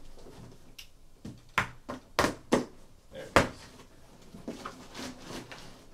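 Cardboard shipping box being torn open: packing tape slit with a pen and ripped apart, the flaps pulled up with several sharp rips and cracks, loudest from about one and a half to three and a half seconds in, and softer cardboard rustling between them.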